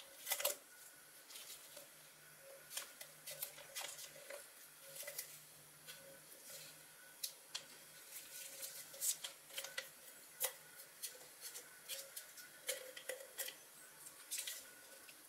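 Blue painter's tape being pulled from the roll and pressed around the metal can of a hand oiler by gloved hands: faint, irregular crackles and clicks of tape peeling and gloves handling the can.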